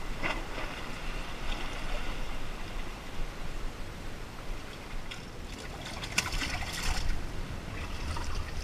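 Seawater washing and trickling among rocks in a steady hiss, with a few short clicks about six to seven seconds in.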